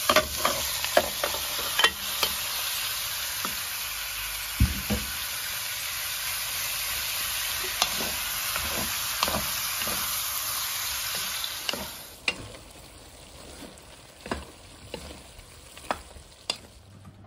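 Food frying in a pan, a steady sizzle, with a utensil stirring and knocking against the pan. The sizzle stops about twelve seconds in, leaving a few scattered clinks of the utensil.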